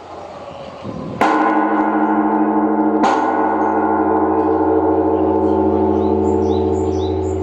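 Large bronze Japanese temple bell (bonshō) of Zojoji, one of the three great bonshō of Edo, struck by the wooden striking log about a second in and hit again about two seconds later. Its deep boom rings on as a long, slowly fading tone of many pitches over a low hum: the evening bell.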